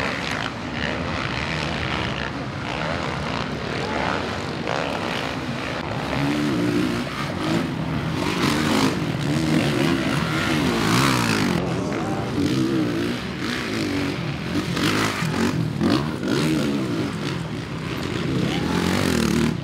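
Honda motocross bikes racing past, their engines revving up and down as the riders get on and off the throttle through the corners. The revving grows busier and louder from about six seconds in, as bikes accelerate close by.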